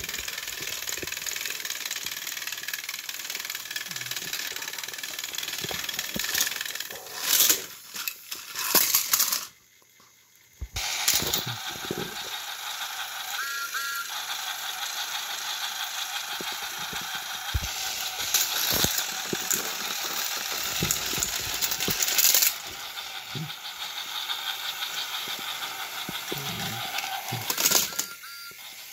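Battery-powered toy train engines pushing against each other on plastic track: a steady high whirr of their small motors and gearboxes with a rattle of wheels and couplings. There are short louder clattering spells, and the whirr breaks off for about a second a little before 10 s, then starts again.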